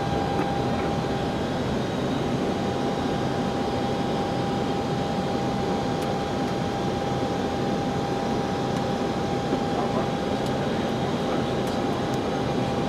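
Steady flight-deck noise inside an Airbus A321 cockpit on approach: a rush of airflow and air conditioning with a steady high tone running through it.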